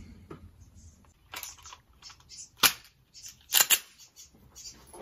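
A few sharp metallic clicks and clacks from handling a pistol: one sharp one about two and a half seconds in, then a quick double a second later, with smaller ticks around them.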